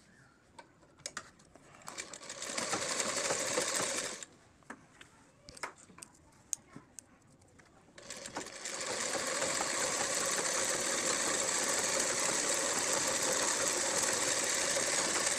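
Sewing machine stitching a seam through cloth. It runs briefly about two seconds in, stops while a few light clicks are heard, then starts again and runs steadily for most of the second half before stopping.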